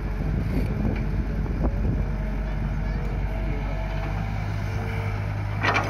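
Caterpillar E120B hydraulic excavator's diesel engine running steadily as it swings a loaded bucket over a truck, a low, even drone whose note firms up about two-thirds of the way through as the boom lifts.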